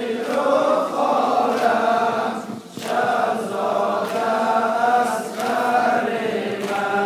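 A group of men chanting a Muharram lament (nauha) in unison, in long held lines with a brief break about two and a half seconds in.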